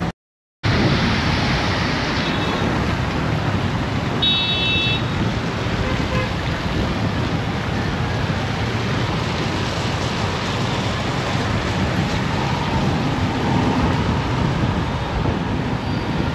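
Steady road-traffic noise with wind rushing over the microphone, recorded on the move through city traffic. A short high-pitched tone sounds about four seconds in.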